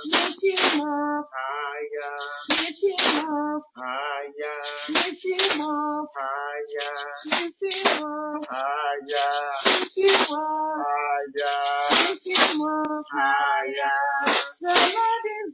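Singing of a praise song, accompanied by hand-shaken maracas. The shaker strokes come in pairs, about every two and a half seconds, keeping the beat.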